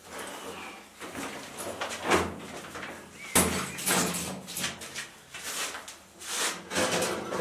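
Clattering knocks, rattles and scrapes of a metal-framed folding camp chair being handled and set up on a concrete floor, the sharpest knocks about two and three and a half seconds in.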